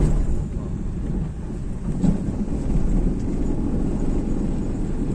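Steady low rumble of road and engine noise inside a moving car, with a short knock about two seconds in.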